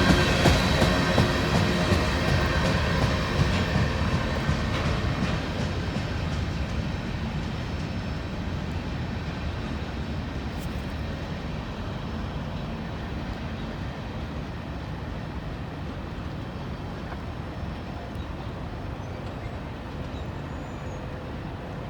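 Long CSX freight train rolling past, its cars rumbling on the rails. The sound fades steadily, with a few steady tones at first that die away within the first few seconds.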